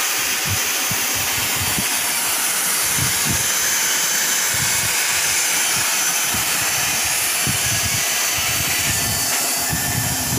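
Steady hiss of the hot-air blower on a HEMTEK ST banner hem welding machine, with irregular low rumbles beneath it.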